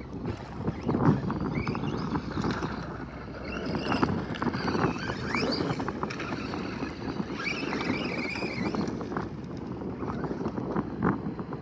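Arrma Kraton 4S V2 RC truck's brushless motor whining up and down in pitch in three spells as it is driven hard on 4S LiPo power, over a rough noise of tyres on dirt, scattered knocks and wind on the microphone.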